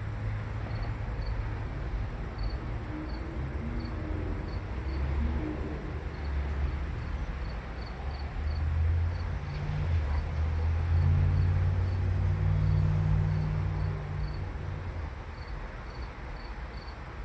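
A low engine drone swells, is loudest about two-thirds of the way through, then fades, while crickets chirp steadily, about two chirps a second.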